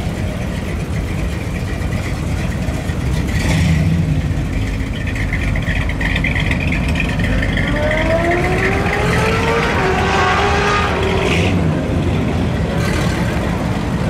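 Hot-rodded Plymouth coupe's engine running with a deep exhaust note as the car pulls away, its pitch climbing steadily as it accelerates about halfway through, with short louder blips of throttle a few seconds in and near the end.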